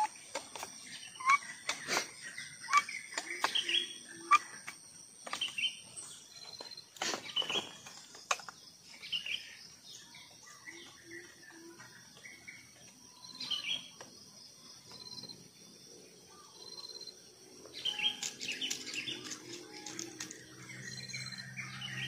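Small birds chirping and calling throughout, with short repeated high notes. Sharp clicks and knocks, most of them in the first eight seconds, as an air rifle with a scope is handled and set onto a tripod. A high steady whine cuts off about six seconds in.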